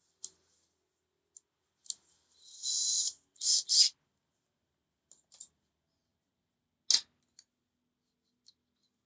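Scattered sharp clicks and a few short scraping rasps of small metal and plastic parts being handled while working on a cordless impact wrench's housing, the longest rasps a couple of seconds in and a loud click about seven seconds in.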